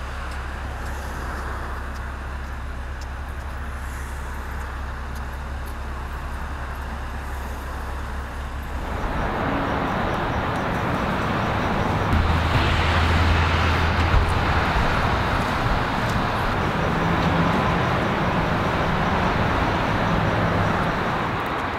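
Steady outdoor background noise: a low rumble at first, turning into a louder, hissier wash about nine seconds in.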